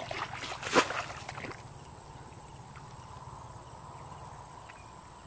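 Plastic bucket scooping and tossing muddy water out of a shallow pool: a few splashes and sloshes in the first second and a half, the loudest about a second in, then only faint steady background.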